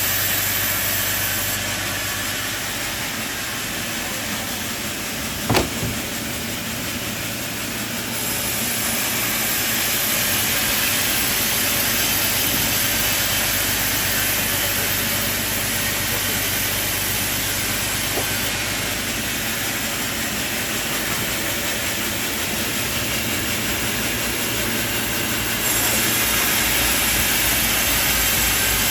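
Sawmill machinery running steadily with a loud, even whir, with one sharp knock about five and a half seconds in.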